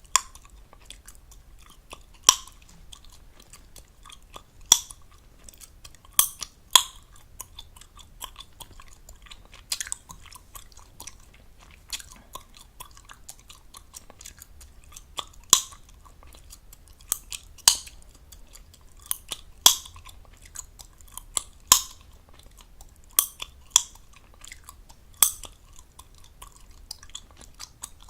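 Chewing gum close to the microphone, with wet smacking and loud, sharp gum pops every one to three seconds.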